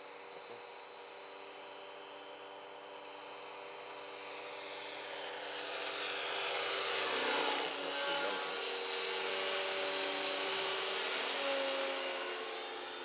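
Align T-Rex 600 flybarless radio-controlled helicopter flying past, its rotor and drive whine growing louder from about four seconds in as it comes closer. The pitch wavers up and down with its manoeuvres in the second half.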